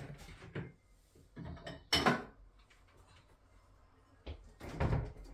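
Kitchen cupboard handling: a wall-cupboard door opened and shut and things taken out and set down on the counter, a few separate knocks and clatters, the sharpest about two seconds in and another near the end.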